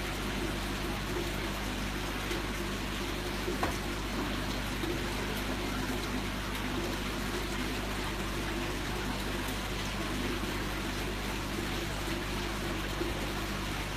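Steady splashing and trickling of aquarium water, typical of a filter return or airstone, over a steady low pump hum.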